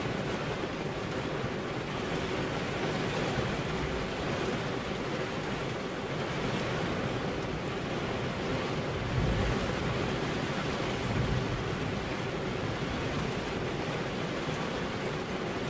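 Rain falling steadily, a dense even hiss. A low rumble swells briefly twice, about nine and eleven seconds in.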